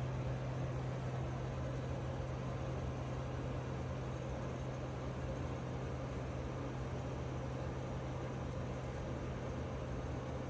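Steady low hum over an even hiss, with no separate events.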